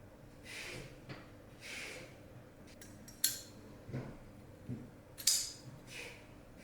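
Two sharp metallic clicks of a knife being handled, about two seconds apart, with a few light knocks between them and slow breathing around them.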